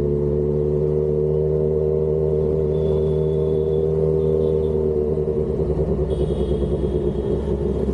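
Kawasaki Z1000's engine with a full-system titanium aftermarket exhaust, running steadily at low revs with an even note that turns uneven and pulsing in the last few seconds.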